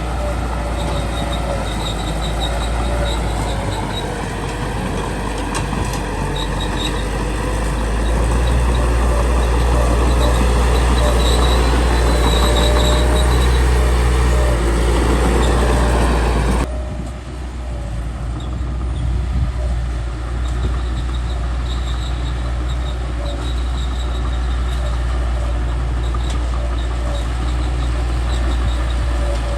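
Small bulldozer at work: its diesel engine runs steadily with a deep low end while the steel tracks clank and give high squeaks. About two-thirds of the way through the sound cuts abruptly to a thinner, quieter engine sound.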